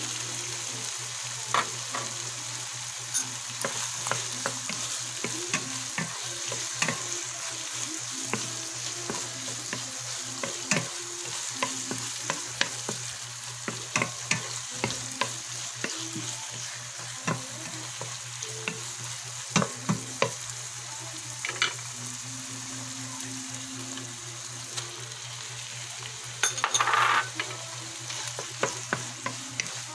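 Meat and vegetable sauce sizzling in a frying pan while a wooden spatula stirs it, knocking and scraping against the pan now and then. Near the end there is a louder rush as sliced mushrooms are tipped into the pan.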